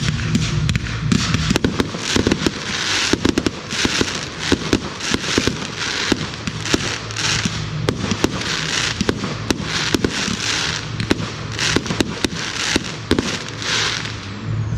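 Fireworks display: a rapid, continuous string of sharp bangs from shells and candles firing and bursting, with hissing, crackling rushes about once a second.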